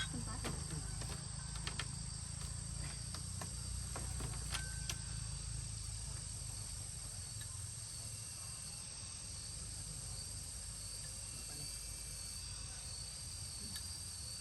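Insects trilling steadily in two high, thin, continuous tones, with a few sharp clicks in the first few seconds.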